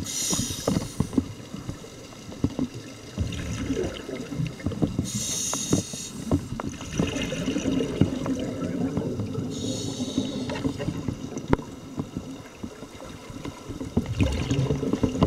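Underwater audio on a scuba dive: a diver's regulator exhaust bubbles out in a hissy, bubbling burst about every five seconds, over a steady low rumble with scattered short clicks.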